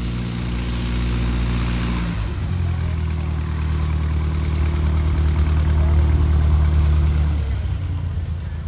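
Piston engine of a single-engine light propeller plane running steadily as the plane rolls along the runway. It grows louder and then drops away near the end as the plane passes.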